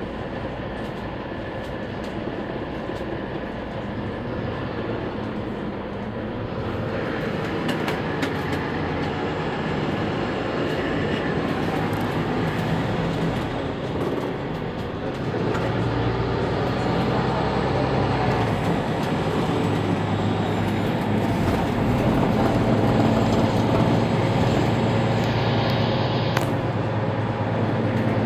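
Mercedes-Benz Citaro C2 city bus heard from inside the cabin: engine and road noise while driving, growing louder about six seconds in and again about halfway through.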